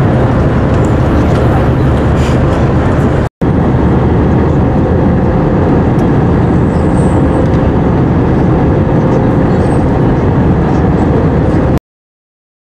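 Steady roar of an airliner cabin in flight, with jet engine and airflow noise and a faint steady hum. It drops out for an instant a little over three seconds in, then cuts off suddenly near the end.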